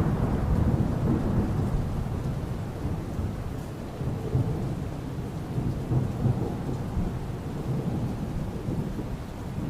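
Steady rain with a low roll of thunder dying away over the first few seconds, then another low rumble swelling around the middle.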